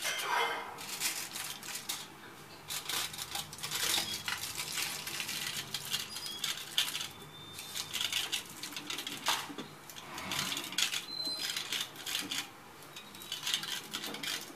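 Aluminium foil crinkling and crackling on and off as it is pressed down and crimped by hand around the tops of kulfi moulds.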